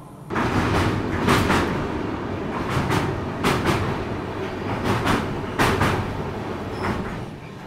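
Coromandel Express train running over a steel truss railway bridge, heard from an open coach door: a steady rumble with sharp clickety-clack of wheels over rail joints, the clacks mostly coming in quick pairs about every second or so.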